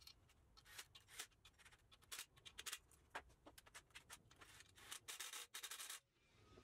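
Faint scattered metal clicks and light scraping from tools and parts on a Hemi V8's cylinder head during valve-spring work, with a longer rubbing scrape about five seconds in.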